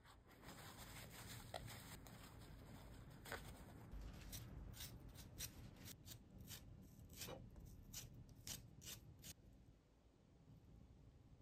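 Faint paper towel rustling against a ginger root as it is patted dry. About four seconds in, a spoon starts scraping the skin off the ginger root in short quick strokes, about three a second, which stop a couple of seconds before the end.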